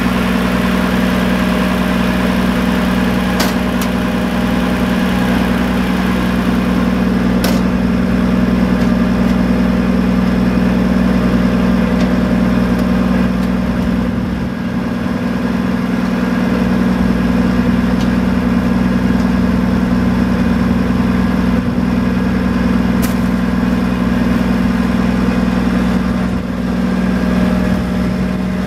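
Cummins L10 straight-six diesel engine of a 1990 Champion 740A motor grader idling steadily, with a deep even drone. Three brief clicks sound over it.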